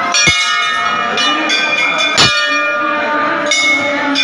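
Metal temple bells struck repeatedly, about once a second, their ringing tones overlapping and sustained; the loudest strike comes about halfway through.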